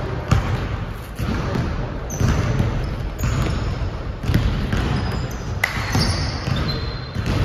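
Basketball bouncing on a hardwood gym floor during play, irregular thuds about once a second, with players' footfalls and a few short high sneaker squeaks in a large gym.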